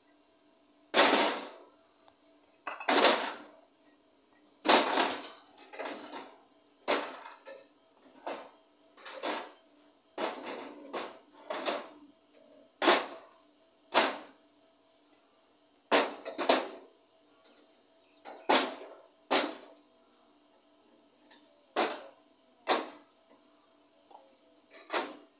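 Bricks clacking against one another as they are handled and stacked: about twenty sharp, hard knocks at irregular intervals, each with a brief ringing tail.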